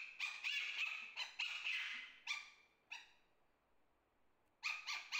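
A white Pomeranian puppy, one to two months old, giving a run of short high-pitched yips and whines for a couple of seconds, one more about three seconds in, and another burst near the end. It is begging, standing up and pawing at a seated person's leg.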